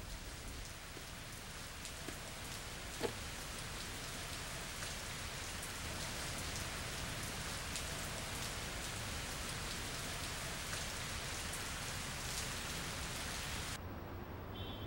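Steady rain falling, a hiss of rain with many small drop ticks and one louder tick about three seconds in. The rain cuts off suddenly near the end.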